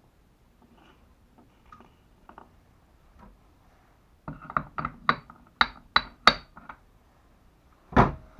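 Metal parts of a dismantled electric hoist motor being handled: faint taps, then a quick run of sharp, ringing metal clinks lasting about two seconds, and one heavier knock near the end.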